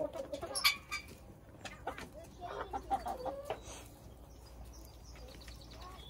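Chickens clucking, a handful of short calls in the first three and a half seconds, then quieter.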